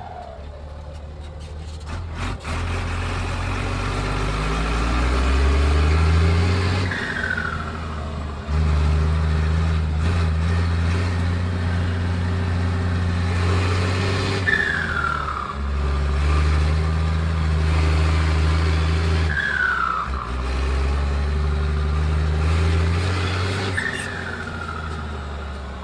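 Turbocharged diesel tractor engine pulling hard through its gears: the engine note climbs steadily, and at each of four gear changes the turbo whistle falls away before the engine pulls up again.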